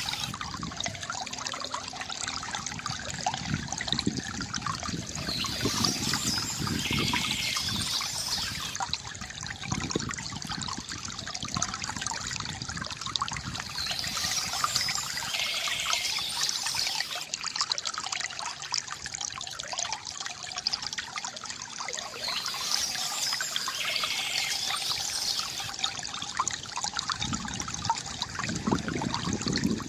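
Water from a bamboo fountain trickling and pouring steadily into a basin, with a brighter patch of sound recurring about every eight seconds.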